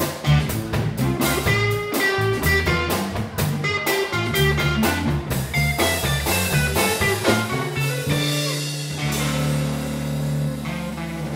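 Live blues trio of electric guitar, electric bass and drum kit playing an instrumental; about eight seconds in, the busy playing gives way to a held, ringing chord.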